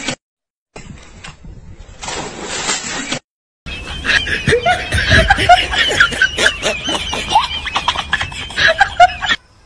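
A short stretch of rough hissing noise broken by hard cuts, then a group of men laughing hard together among excited calls, cutting off suddenly near the end.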